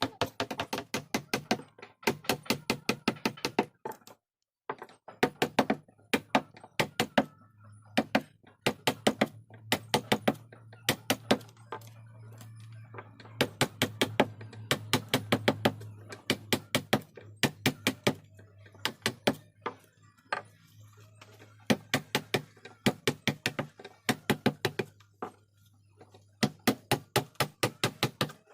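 Mallet striking a carving chisel into hardwood, in runs of sharp, evenly paced knocks of about four a second with short breaks between them. A low steady hum sits underneath for much of it.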